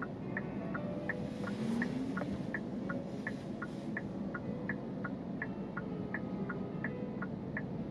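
A car's turn-signal indicator clicking steadily inside the cabin, an alternating tick and tock about three times a second, over the low steady hum of the moving car.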